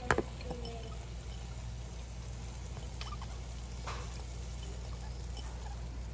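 Dark roux with onion, celery and bell pepper sizzling faintly in the gumbo pot, over a steady low hum. A single sharp clank comes just at the start, and a couple of faint clicks follow later.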